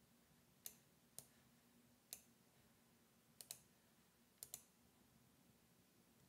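Faint, sparse clicks of a computer mouse: a few single clicks and two quick pairs, over near silence.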